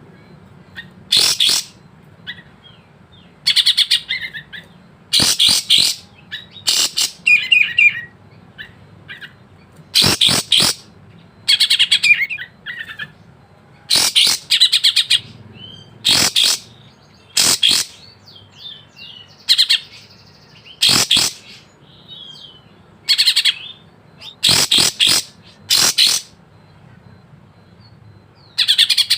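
Kapas tembak, a caged bulbul, singing: loud, sharp, high phrases of varied chirps and trills, a burst every second or so. A faint low hum lies underneath.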